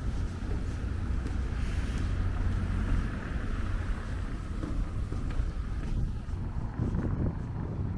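Steady low outdoor rumble with wind buffeting the microphone.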